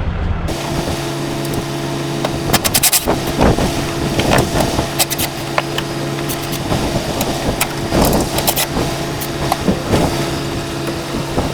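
Hand tools clicking and clinking against metal in short runs, over a steady low machine hum.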